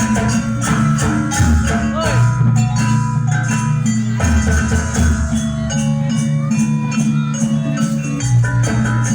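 Live Javanese jaranan ensemble music: gamelan-style metallophones and drums play a dense, continuous pattern of quick strokes over steady low notes.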